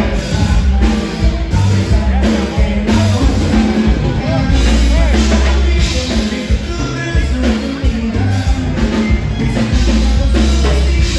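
Live conjunto band playing loud dance music, an accordion-led Tejano sound over drums and bass, with singing at times.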